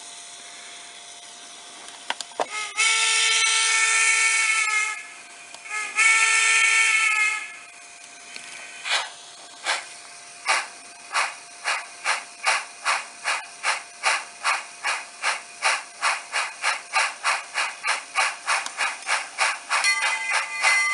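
Steam locomotive sounds from a Tsunami heavy-steam sound decoder played through a tiny Sugar Cube speaker: a steady hiss, two long whistle blasts, then exhaust chuffs that speed up steadily as the locomotive gets under way.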